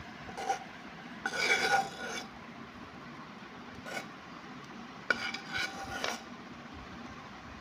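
A metal spoon scrapes cooked, crumbly flour dough out of a pan into a steel bowl, with metal clinking and ringing. The scrapes come in separate strokes: the loudest about a second in, and a group of sharper scrapes about five seconds in.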